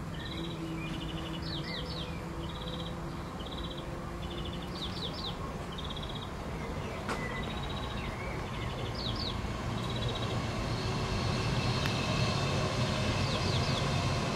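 Small birds calling: short buzzy notes and quick sweeping chirps repeated every second or so, over a steady low rumble of distant traffic that grows louder from about ten seconds in.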